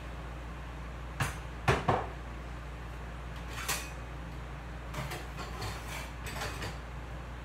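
Dishes being washed by hand at a kitchen sink: sharp clinks and knocks of dishes and cutlery, three close together about a second in and more scattered ones later, over a steady low hum.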